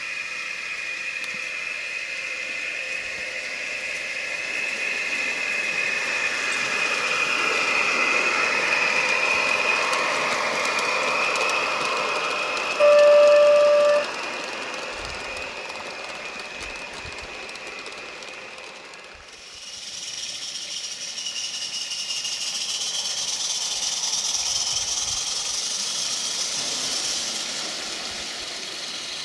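Live-steam 16 mm-scale garden-railway locomotive hissing steadily as it runs. Near the middle comes one loud, clear whistle blast lasting about a second. The hiss changes suddenly about two-thirds of the way through.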